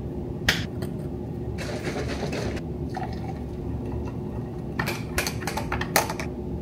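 Kitchen sounds of a powdered greens drink being made. A click comes as a canister lid is handled, then a second or so of handling noise, the drink is poured into a ribbed glass, and several clinks of stirring come near the end. A steady low hum runs underneath.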